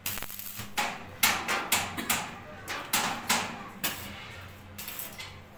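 Stick (arc) welding on steel bars: the arc crackles in about a dozen short, irregular bursts as tack welds are struck, over a steady low hum.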